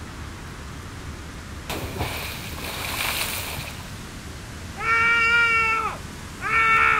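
A soft hiss like television static, then two drawn-out, cat-like meowing calls about a second long each, the first dropping in pitch as it ends.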